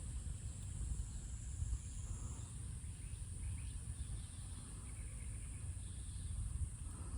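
Outdoor ambience: a steady high-pitched insect drone, a few faint bird chirps, and low wind rumble on the microphone.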